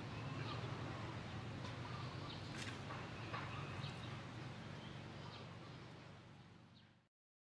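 Outdoor ambience of birds calling in short notes over a steady low rumble, fading out and cutting to silence near the end.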